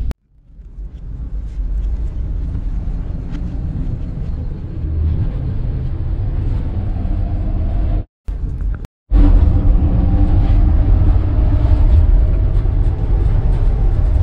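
Steady low rumble of a Russian sleeper train, heard from inside the carriage. It cuts out briefly just after the start and twice around the middle; after that it is louder, with a steady hum in it.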